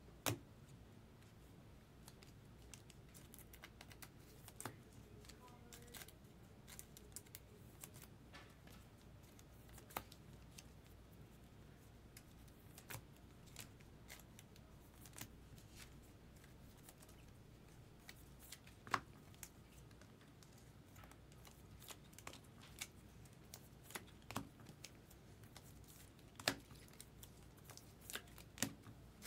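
Scattered light clicks and snaps of trading cards being handled, sorted and shuffled, over near silence.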